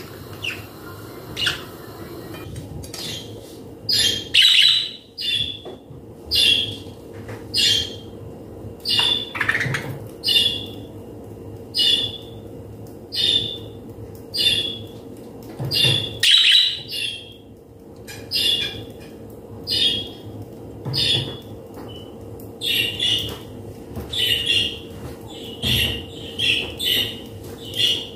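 Metal mesh sieve shaken in a steady rhythm while sifting flour, about one and a half scratchy swishes a second, starting about three seconds in, over a faint steady hum.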